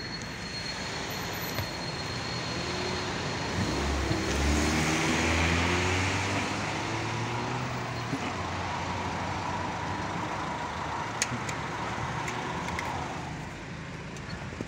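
A vehicle engine nearby speeding up, its pitch climbing and swelling for several seconds before settling, over steady road and idling noise heard from inside a car.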